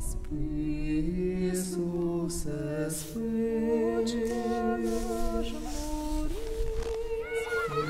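Several voices singing unaccompanied in slow harmony, long held notes whose chord shifts every second or two.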